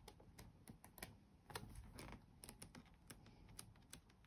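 Faint, irregular paper flicks and clicks as the pages of a pad of patterned craft paper are leafed through one after another.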